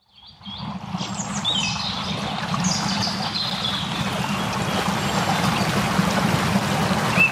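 Running stream trickling steadily, fading in over about a second, with birds chirping in short falling calls, most of them in the first half.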